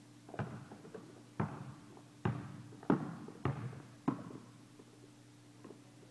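Basketball dribbled on a gym floor: about six bounces, each echoing in the hall, then the bouncing stops about four seconds in. A faint steady hum lies underneath.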